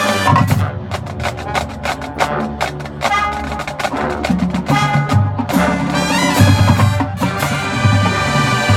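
College marching band playing a percussion-heavy passage: the drumline beats out a rapid run of sharp hits while the brass holds sustained notes.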